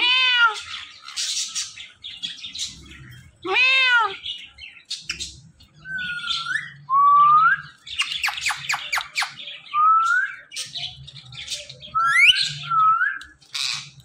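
Indian ringneck parakeets calling: loud arching squawks near the start and about four seconds in, then short rising whistles and a quick burst of clicking chatter around the middle.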